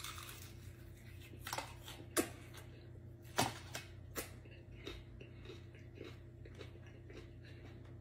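A person chewing a mouthful of fried chicken, with a few faint, sharp crunches and mouth sounds in the first half, over a low steady room hum.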